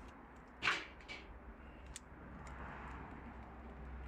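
Firewood being lit in the top of a homemade gasification stove: a short sharp click under a second in, then a faint, steady rushing noise that builds slightly as the fire starts.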